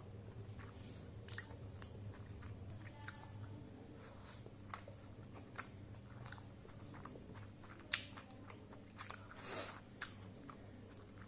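Close-miked chewing of soft steamed momo dumplings: faint wet mouth sounds with scattered small clicks. A sharp click comes about eight seconds in and a longer wet sound a little after nine seconds, over a steady low hum.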